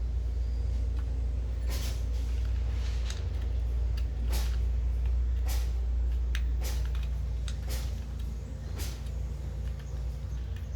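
Sharp knocks, about one a second, seven or eight in all, over a steady low rumble and hum.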